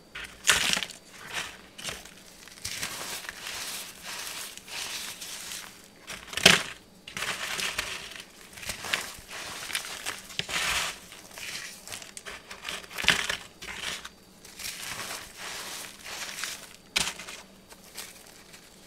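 Pink moulded cornstarch shapes crushed between the fingers: irregular dry crunches and crumbles, with sharper snaps as pieces break, the loudest about six and a half seconds in.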